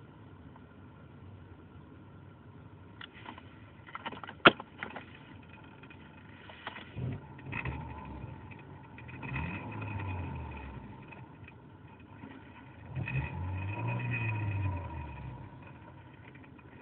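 Citroën XM making a strange mechanical noise: a sharp click about four seconds in, then three spells of low droning with a steady whine above it, each about two seconds long and falling in pitch as it dies away.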